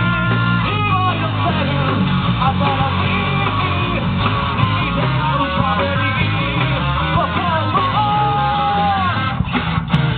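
Rock band playing live: a male singer singing over electric guitar, bass guitar and drums.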